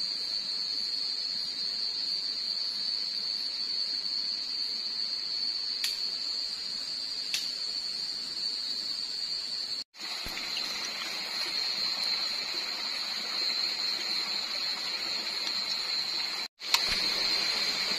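Night forest ambience: insects, crickets by their sound, keep up a steady high chirring over the rushing of a stream, with two faint clicks a few seconds in. The sound cuts out for an instant twice, about ten and sixteen seconds in, and the stream is louder after the first break.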